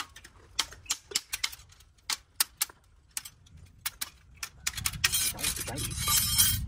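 Sharp, irregular metallic clicks and clinks, several a second, as steel tie wire is twisted around the bars of a rebar column cage. In the last two seconds a louder rushing, scraping noise comes in over them.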